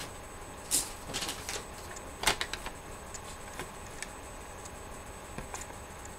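Scattered clicks and light knocks of small hard objects being handled, with short clusters about one and two seconds in and a few fainter ones later.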